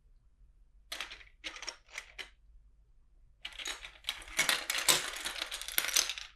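Loose plastic LEGO bricks clicking and rattling against each other: a few short rattles, then a continuous clatter from about three and a half seconds in as hands rummage through the pile.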